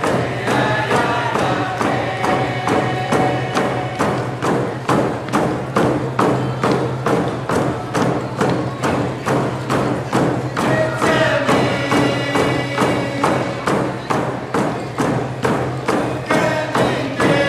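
Hand-held frame drums beaten together in a steady, even beat, with a group of voices singing a traditional First Nations song over them; the singing is strongest near the start and comes in again about two thirds of the way through.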